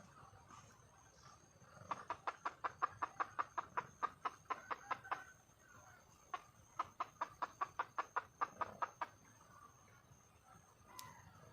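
Red junglefowl hen clucking in two quick, rapid runs of evenly spaced notes, each about three seconds long: the hen's call to a male.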